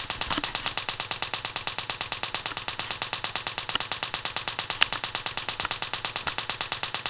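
Relay-pulsed ignition coil firing a high-voltage plasma spark across a small gap: a fast, even train of sharp snapping clicks, about ten a second.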